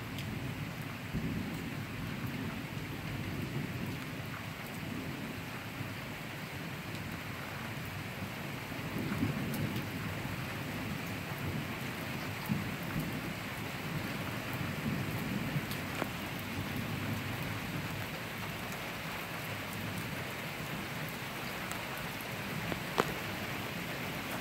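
Steady rain falling during a thunderstorm, with low thunder rolling and swelling several times. A few sharp ticks stand out, the loudest near the end.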